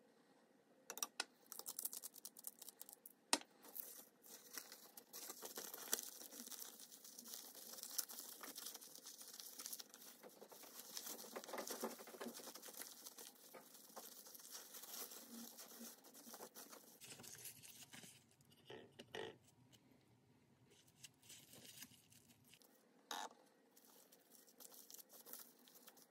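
Plastic cling film crinkling and rustling as hands fold it around a nori-wrapped rice ball and squeeze it into shape, with scattered sharp clicks. The crackling thins out in the last third.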